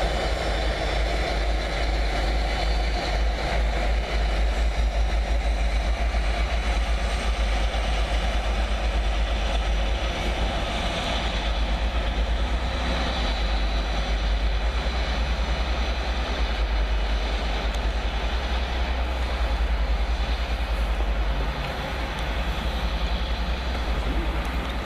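A pair of Direct Rail Services Class 57 diesel locomotives pulling away, their two-stroke EMD engines working hard. The engine rumble is loud and steady and eases a little a few seconds before the end.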